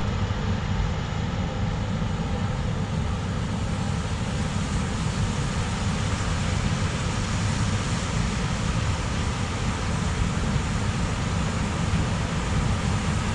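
Combine harvester running steadily while harvesting barley: a constant low engine drone with an even hiss of machinery over it.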